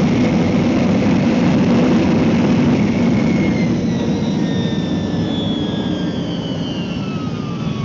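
Tu-154 jet engines heard loud inside the cabin during the landing rollout, a roar over runway rumble. From about three seconds in it eases off with several falling whines as the engines spool down.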